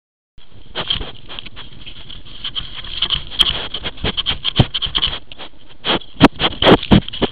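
European badger sniffing and licking at a trail camera right against its microphone: a quick run of close snuffles, clicks and scrapes of snout and fur on the housing, louder and busier in the second half, over a steady high hiss. It begins after a brief silence about half a second in.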